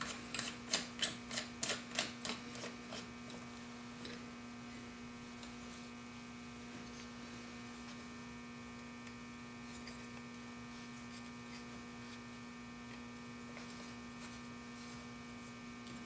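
Light metal clicks and taps, about three or four a second over the first three seconds, as a chisel is worked into a General sharpening jig. A steady electrical hum follows.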